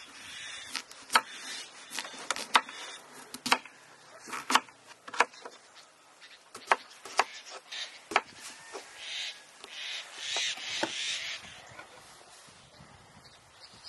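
A string of sharp, irregular knocks and clicks, a dozen or more, with a stretch of rustling and scraping about ten seconds in.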